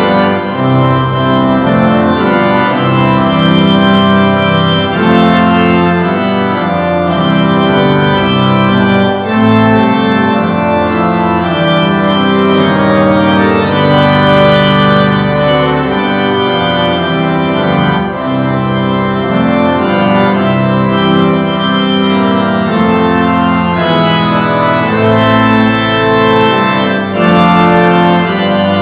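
Organ music: full sustained chords held and changing every second or two.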